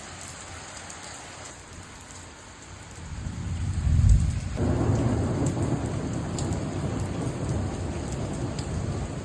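Steady rain with a peal of thunder: a deep rumble swells about three seconds in, peaks a second later, and keeps rolling loudly.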